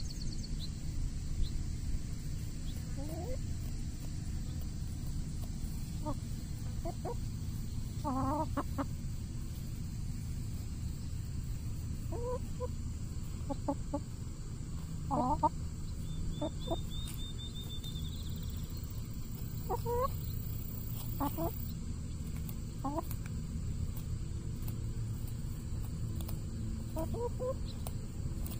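Hens clucking now and then as they forage on grass: short separate calls every few seconds, over a steady low rumble.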